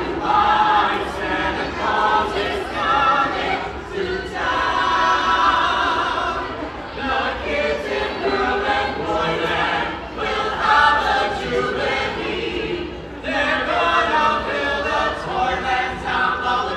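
A small mixed group of carolers singing a holiday song a cappella in harmony, with one long held chord about four seconds in and short breaks between phrases.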